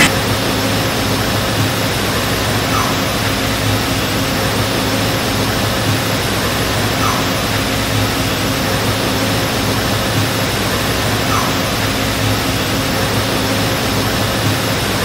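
A steady hum over an even hiss, with a faint short chirp repeating about every four seconds.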